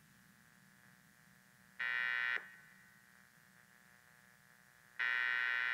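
Two short, harsh electronic buzzes, each under a second and about three seconds apart, starting and stopping abruptly over a faint steady hum: a digital glitch sound effect.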